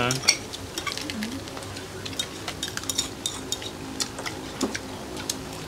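Eating utensils and dishes clinking during a meal: scattered light clicks and taps of utensils against bowls and plates, with a brief murmur of a voice about a second in.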